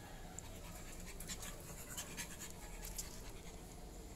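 A pug panting softly, with faint scattered ticks.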